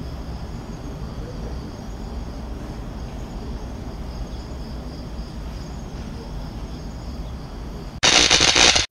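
Digital voice recorder playback of an outdoor recording at night: steady hiss and low rumble with a faint high whirring band, presented as an EVP of unknown talking. About eight seconds in, a loud burst of static lasting under a second.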